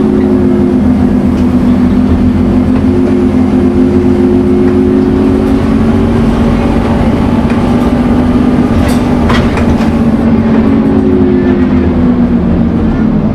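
Scania N230UD Omnicity bus running under way, heard on board: a steady engine and drivetrain drone carrying a whine, the sound enthusiasts call the Scania 'hoover'. A couple of sharp clicks or rattles come about nine seconds in.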